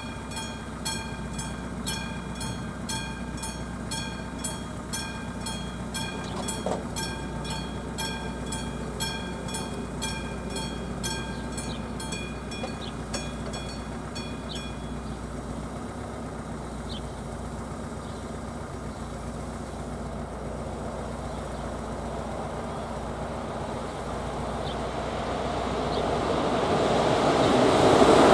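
A classic mechanical level-crossing bell rings steadily at about two strikes a second, then stops about 15 seconds in, once the barriers are down. Near the end an approaching electric-hauled train grows steadily louder.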